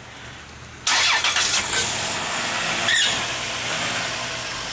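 A car engine starts suddenly about a second in and keeps running with a rough knocking, the sound the owner calls engine knock.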